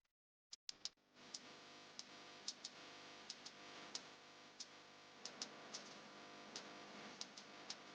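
Dead silence for about the first second, then a faint bed of sustained, steady tones with scattered, irregular sharp ticks.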